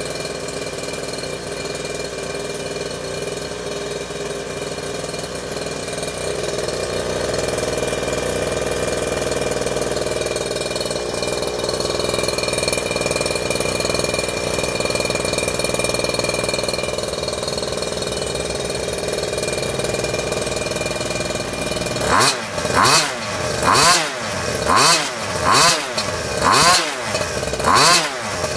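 Zenoah G23LH 23cc two-stroke scooter engine with a tuned expansion pipe, running steadily at idle. About twenty seconds in it is revved in short quick blips, about one a second, each rising and falling in pitch.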